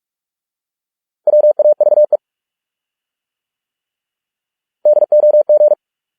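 Morse code sent at 45 words per minute as rapid on-off beeps of a single steady tone, in two short bursts about three seconds apart, each burst one English word.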